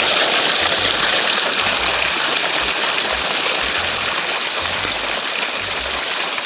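Rushing water, a loud steady flow that starts and stops abruptly.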